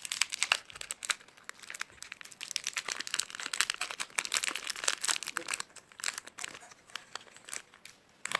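A chocolate bar's plastic wrapper crinkling and crackling in quick, irregular bursts as it is handled and unwrapped.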